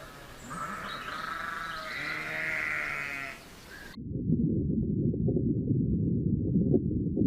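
A sheep bleating, a long wavering call. About four seconds in it cuts abruptly to a louder, dull, muffled jumble of sound with no high end.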